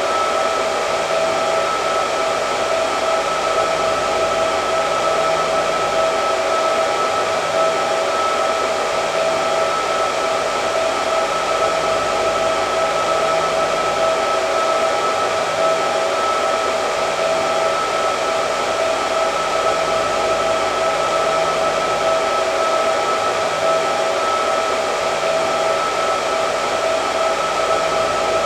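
Hair dryer running continuously: a steady rush of air with a constant high hum from the motor, without change.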